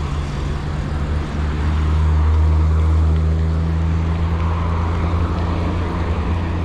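Road traffic: a motor vehicle's engine running close by, a steady low hum that grows louder about two seconds in.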